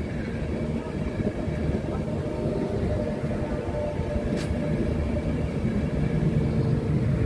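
An LNER InterCity 225's Mark 4 coaches passing at speed: a steady rush and rumble of wheels on rail, with one brief sharp click about four seconds in.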